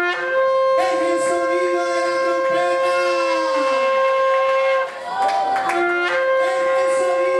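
A shofar blown in two long held blasts, with a short break about five seconds in. The pitch of the first blast sags at its end.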